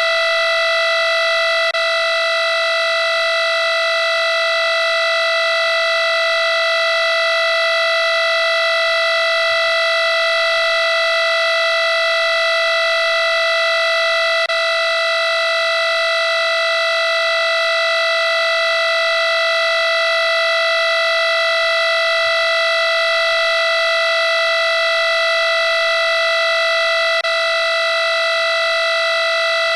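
Electronic alarm-clock tone sounding without a break: one loud, buzzy note that holds the same pitch and loudness, with no beeping on and off.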